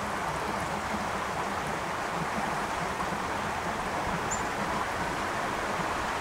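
Steady rush of flowing creek water, with one short high bird chirp about four seconds in.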